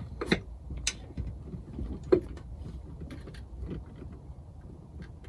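Cables being handled and a power plug pushed into a Raspberry Pi: a few small clicks and knocks, three sharper ones in the first couple of seconds, over a low steady rumble.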